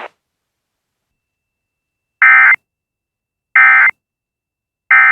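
Emergency Alert System end-of-message data bursts: three identical short, buzzy digital tone bursts about 1.3 seconds apart, starting about two seconds in. They are the signal that closes the alert message.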